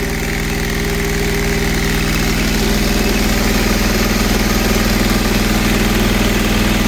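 Engine running steadily while a TMR feed mixer mixes and feeds out a load of cattle feed. Its drone grows stronger about two and a half seconds in.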